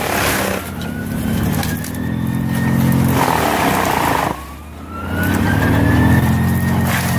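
Crane-fed wood chipper on a large forestry tractor chewing whole trees into chips: the engine runs heavily under load with rushing chipping noise, and a whine rises in pitch twice, about a second in and again past the middle.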